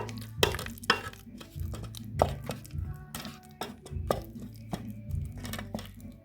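Background music with a steady bass line, over scattered sharp knocks and clicks.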